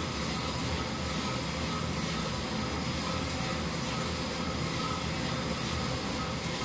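Commercial drum coffee roaster running steadily with a batch of green coffee inside: an even mechanical rush from the turning drum, burner and blower, with faint steady humming tones. The roast is in its early drying stage, just around the turnaround.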